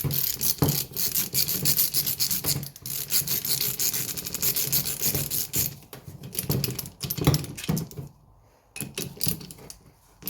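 Socket ratchet clicking rapidly with metal rattles as the loosened cylinder-head nuts of a 50cc two-stroke moped engine are spun off. The clicking stops briefly near the end, then a few more clicks follow.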